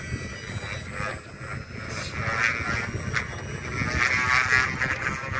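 RC dirt bike's motor whining in short bursts, about two and four seconds in, as the throttle is blipped with the bike held in place, over wind on the microphone.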